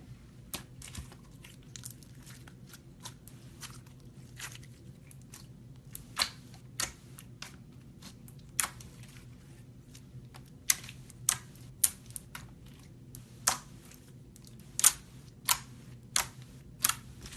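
Slime being pressed and poked, giving off sharp, irregular pops and crackles that grow louder and more frequent about a third of the way through.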